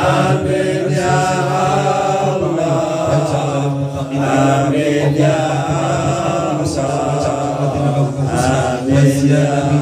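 Group of men's voices chanting a sholawat, Islamic devotional praise of the Prophet, together without a break, one voice leading.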